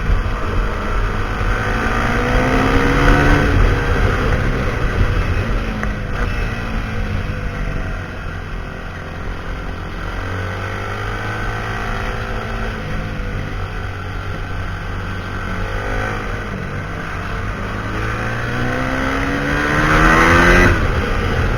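Husqvarna SMR 511 single-cylinder supermoto engine through a full Akrapovic exhaust, revving up and easing off: the pitch climbs in the first few seconds, settles lower through the middle, then rises again to its loudest near the end and drops off sharply.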